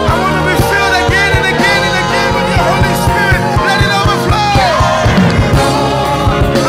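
Gospel worship music from a live band, with a steady drum beat under sustained keys and singing voices.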